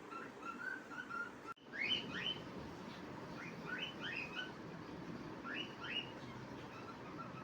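Pet cockatiel whistling its song: short repeated chirps at first, then, after an abrupt break about a second and a half in, groups of quick rising whistles.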